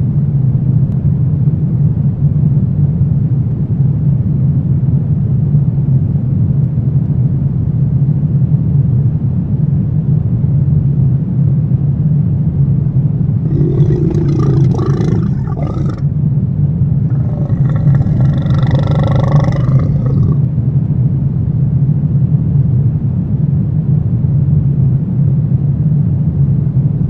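Horror ambience sound effect: a loud, steady low rumbling drone, with two short roar-like creature sounds layered over it about halfway through.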